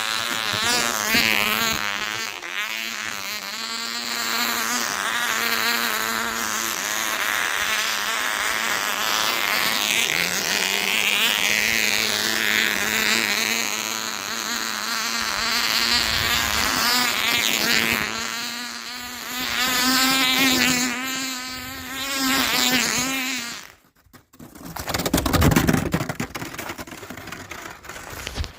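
Tiny Cox glow-fuel model engine spinning the airboat's propeller, a high-pitched buzzing whine that rises and falls in pitch as the boat runs across the snow. The sound drops out abruptly about 24 seconds in, then comes back.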